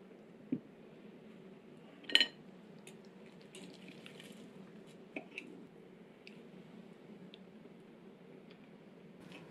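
Tableware at a meal: a soft knock about half a second in, then a sharp ringing clink about two seconds in, the loudest sound, and lighter clinks around five seconds, as a glass is set down on a wooden table and a metal knife and fork cut into French toast on a ceramic plate. A steady low room hum runs underneath.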